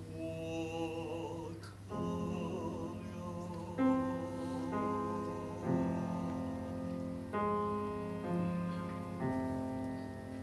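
Piano accompaniment playing sustained chords, a new chord struck every one to two seconds, with a soloist singing in Mandarin over it in the first couple of seconds.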